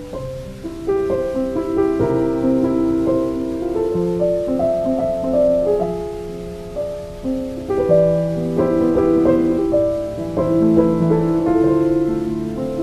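Calm, slow solo piano music: soft held notes overlapping in a gentle melody, lullaby-style music for sleep.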